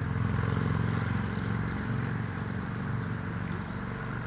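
Low engine rumble of a passing road vehicle, strongest in the first couple of seconds and then easing off, with a few faint high chirps over it.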